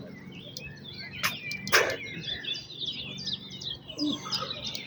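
Small songbirds chirping and trilling steadily, with two sharp clicks about a second and a half in.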